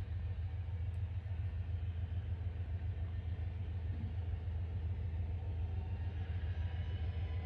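Distant Cessna Citation business jet's turbofan engines whining, with the whine slowly rising in pitch near the end as the engines spool up for takeoff. A steady low rumble runs underneath.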